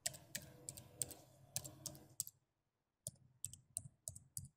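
Computer keyboard typing: a quick run of key clicks, a pause of nearly a second about two seconds in, then a second run of keystrokes, as a username and then a password are entered.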